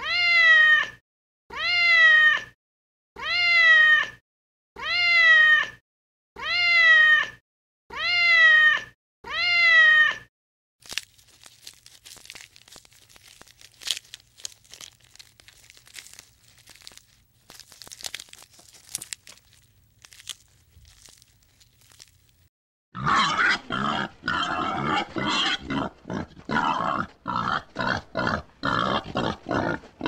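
A cat meowing seven times in a row, the same falling meow about every second and a half with silence between. Then faint crunching and clicking. From about 23 seconds in, a pig grunting in a fast, rough run.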